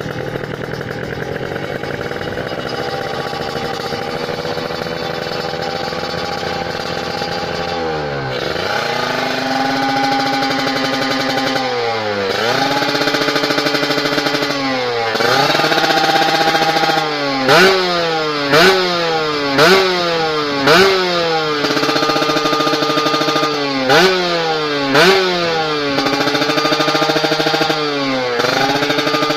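Kawasaki Ninja RR's two-stroke single-cylinder engine, ported and fitted with an AL-TECH exhaust, idling steadily for about eight seconds and then revved: a few slower pulls that rise and hold, then quick throttle blips about once a second.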